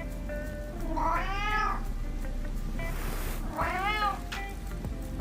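A domestic cat meowing twice, each meow rising and then falling in pitch, over background music.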